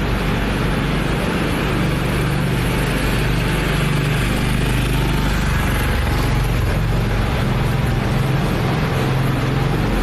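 Steady low rumble and hum of slow-moving vehicles on a concrete roadway, even in level with no distinct events.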